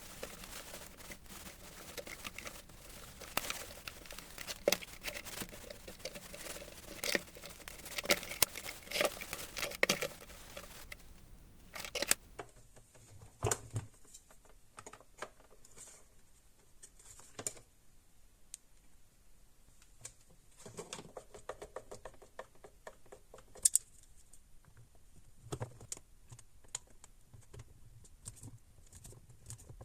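Hands working on small plastic parts of a handheld vacuum cleaner, recorded close. For about the first twelve seconds there are rapid clicks, scrapes and rustling; after that come scattered single taps and clicks.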